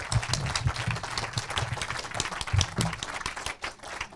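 Small audience applauding, individual claps distinct.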